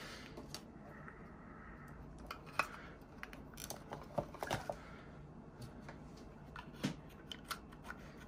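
Small plastic clicks and handling noises, scattered and faint, as the battery compartment of an AKG WMS40 Mini bodypack transmitter is worked open and an AA battery is fitted.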